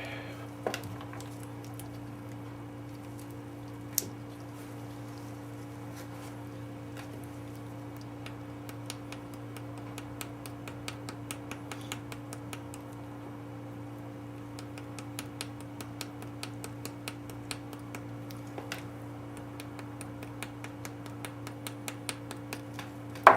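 Ford 302 valve being hand-lapped into its seat with coarse lapping compound: a run of light, irregular gritty ticks and scrapes as the valve is worked back and forth against the seat, sparse at first and much busier from about a third of the way in.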